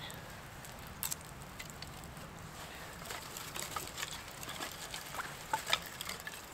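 Dry hardwood kindling sticks clicking and knocking together as they are stacked by hand over a small fire, in scattered light taps, with a sharper knock about a second in and a quick cluster of knocks near the end.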